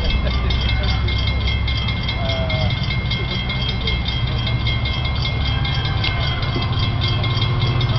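EMD F59PHI diesel locomotive approaching, a low engine and rail rumble that grows stronger through the second half. A fast, even high-pitched pulsing runs over it.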